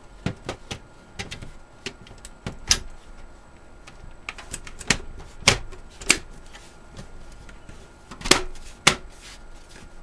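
Plastic front bezel of a PC tower being pressed back onto the steel case, making a series of sharp plastic clicks and knocks. The loudest come about halfway through and near the end, as it is pushed into place.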